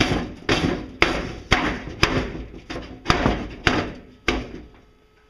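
Sheet-metal stove body struck repeatedly, about nine blows at roughly two a second, each with a short tinny ring, stopping near the end.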